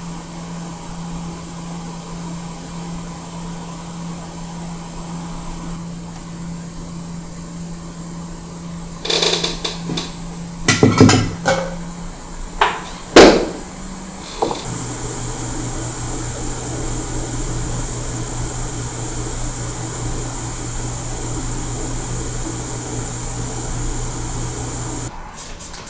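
Microsoldering bench at work. A steady low hum runs first, then a string of sharp knocks and clicks as tools are handled on the bench, the loudest two about 11 and 13 seconds in. About halfway through, a hot air rework station blows a steady airy hiss with a lower hum, which cuts off near the end.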